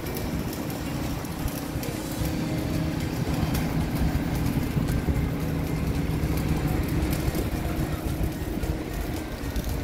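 Engine of site machinery running steadily at a constant speed, a low even drone.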